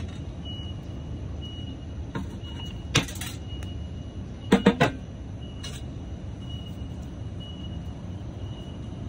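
Steady low hum of city traffic, with a faint high beep repeating on and off. Sharp handling clicks from scissors and fingers on the plant come once about three seconds in, then three quick loud ones around four and a half seconds.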